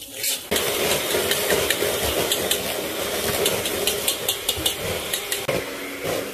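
Cashews and raisins frying in hot fat in a steel wok, with a metal spoon stirring and scraping against the pan in many sharp clicks. It starts suddenly about half a second in.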